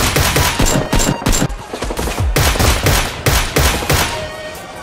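Rapid gunfire shots in quick succession, each with a short low boom. The shooting stops about four seconds in.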